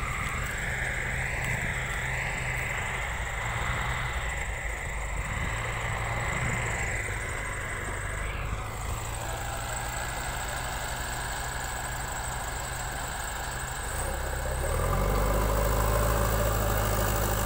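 Diesel engines of a Swaraj 855 tractor and a JCB backhoe loader running steadily. About fourteen seconds in, the engine sound grows louder and deeper.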